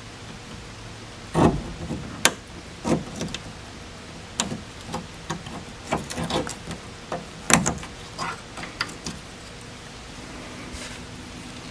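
Irregular small clicks and taps, about eight of them, from fingers and a small tool working the spring retaining clip off the ball-socket end of a trunk lift-support strut.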